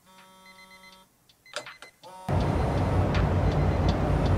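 Faint steady chime-like tones for about a second, then a few clicks. About two seconds in, a steady rumble of city traffic cuts in suddenly and is the loudest sound, with occasional short sharp ticks over it.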